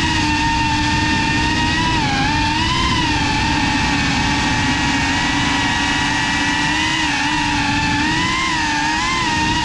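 GEPRC Cinelog35 FPV cinewhoop's motors and ducted propellers whining steadily, the pitch wavering up and down with throttle changes, with dips about two seconds in and again near the end.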